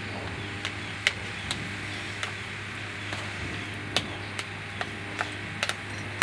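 Metal spoon tapping and scraping against a plate: scattered light clicks about every half second, over a steady low hum.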